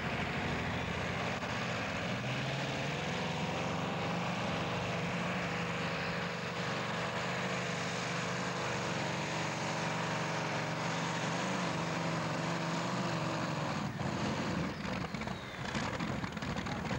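Curtiss-Wright 18-cylinder twin-row radial aircraft engine in a pulling tractor, running at full power with a steady, slightly wavering drone while hauling the sled, then dropping off about fourteen seconds in as the pull ends.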